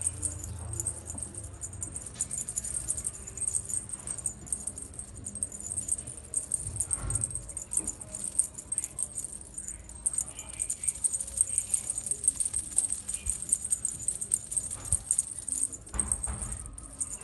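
Small bells jingling rapidly and steadily, a continuous high shimmering jingle.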